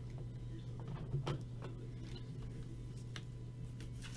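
Trading cards being handled and shuffled from an opened pack: scattered light clicks and rustles over a steady low hum.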